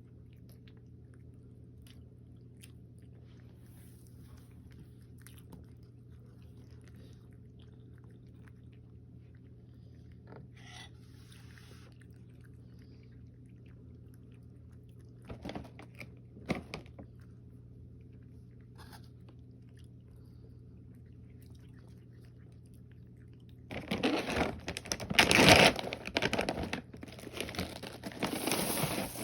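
Close-up chewing and crunching of food over a steady low hum. Faint at first, with two louder crunches about halfway and a louder, busier stretch of chewing in the last five seconds.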